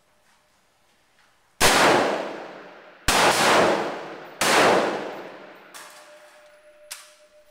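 Three rifle shots about a second and a half apart. Each leaves a long, echoing decay in the enclosed indoor firing range. A couple of faint sharp clicks follow.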